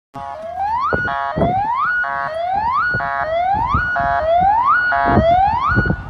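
Synthesized emergency-alert alarm: a rising siren whoop repeated about once a second, six times, each followed by a short steady multi-tone beep, with low thumps underneath.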